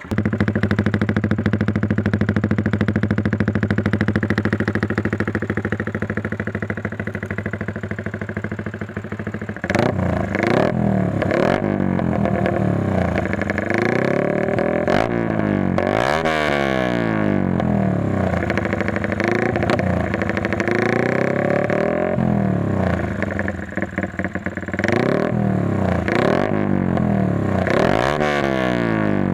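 Yamaha Sniper 150 single-cylinder four-stroke engine breathing through a PROLINER TR1 aftermarket exhaust. It idles steadily for about ten seconds, then is revved repeatedly, its pitch climbing and dropping with each blip of the throttle.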